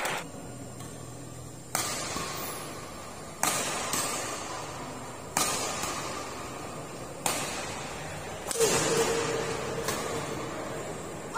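A badminton rally: a racket strikes the shuttlecock five times, a sharp crack every second and a half or so, each one ringing on in a large, echoing sports hall.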